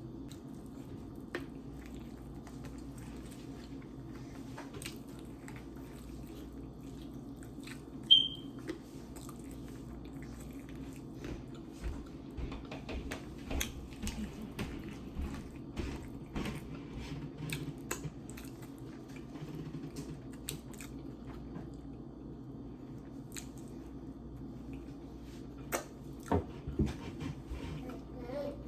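Chewing food close to the microphone, with many small wet clicks over a steady low background hum. About eight seconds in, a single short, sharp high-pitched squeak is the loudest sound.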